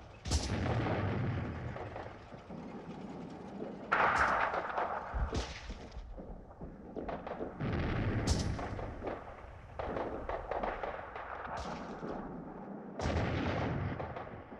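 Heavy gunfire: about eight loud shots at uneven intervals of a second or two, each trailing off in a long rumble.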